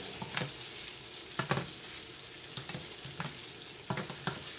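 Rice toasting in a frying pan: a steady sizzling hiss, with a wooden spatula scraping and knocking against the pan every second or so as the rice is stirred.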